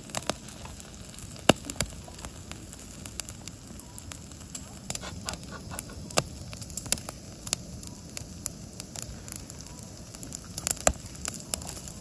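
Marinated pork skin grilling on a wire-mesh grill over a butane camping stove, sizzling and crackling with irregular sharp pops, a few of them loud.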